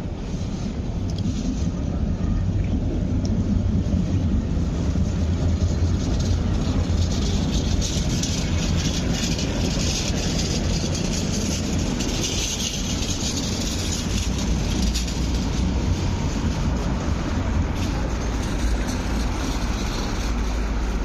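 A Hyundai Rotem-built MTR R-train, a nine-car electric multiple unit, passing on a viaduct overhead. A steady low rumble of wheels on rail builds over the first few seconds, with a higher hiss swelling through the middle.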